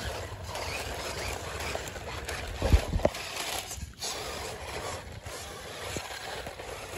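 Toy RC rock-crawler trucks driving over a dirt track: small electric motors and knobbly tyres on the soil. There are two sharp knocks close together about three seconds in.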